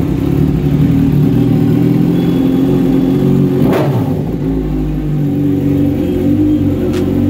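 Kawasaki Ninja 1000's inline-four engine running very loud through an aftermarket exhaust, freshly started, with one brief sharp crack about four seconds in. The engine is shut off at the very end.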